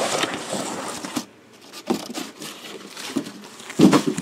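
Cardboard boxes being handled: a rustling scrape of cardboard, then two short knocks as boxes are moved and set down, the second louder.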